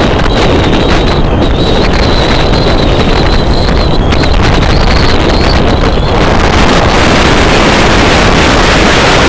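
Loud, steady wind rush buffeting the microphone of a camera on a moving vehicle, with the vehicle's running noise mixed in.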